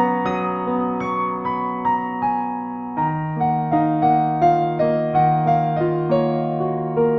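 Gentle electric piano music playing a steady pattern of repeated notes over a held bass, the harmony changing about three seconds in.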